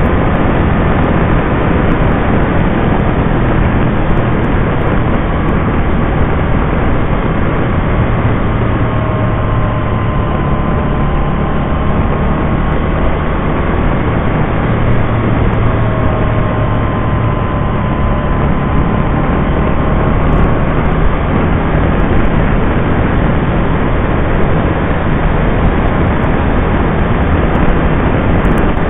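Can-Am Spyder RT three-wheeler under way, a steady engine hum buried in loud, constant wind and road rush on the mounted camera's microphone. A faint whine rises and falls in the middle.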